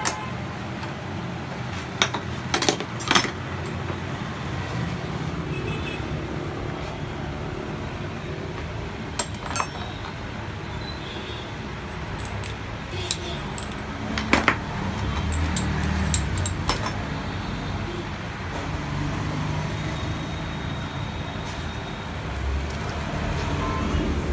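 Sharp metallic clinks and knocks from shock absorber parts and tools being handled on a workbench, coming in small clusters, over a steady hum of road traffic.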